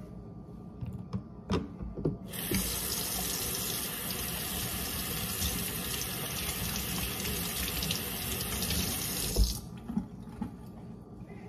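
Kitchen faucet running into a stainless steel sink while hands are washed under the stream. The water comes on about two seconds in and is shut off about two seconds before the end, with a few light knocks before and after.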